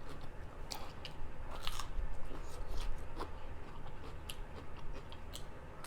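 Close-miked person chewing and biting food, with wet mouth clicks and crunchy bites scattered through a few seconds of eating.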